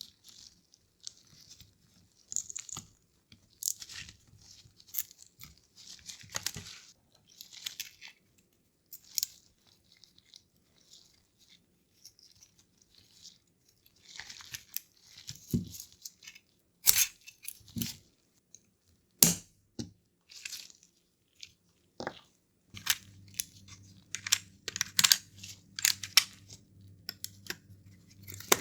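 Close-up handling of a Nintendo DSi XL's small plastic shell parts and ribbon cables: scattered clicks, scrapes and rustles, with short pauses in between. A low steady hum joins near the end.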